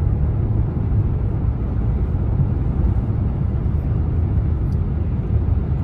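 Steady road and engine rumble inside a moving car's cabin, low and even throughout.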